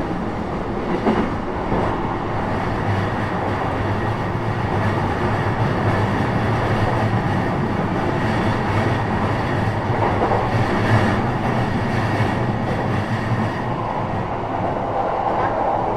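Cabin running noise of an E233 series 3000 electric train rolling along the track: a steady rumble of wheels on rail, with a few sharp clicks from the rails in the first couple of seconds. The weak air conditioning runs underneath.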